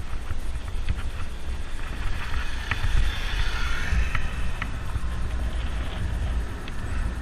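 Wind buffeting the microphone while riding a mountain bike on a rough road: a low rumble with scattered clicks and rattles from the bike.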